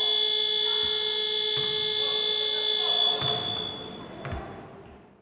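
Gym scoreboard buzzer sounding a steady electronic tone for the end of the period, stopping about three seconds in. A few thuds follow on the court as the sound fades out near the end.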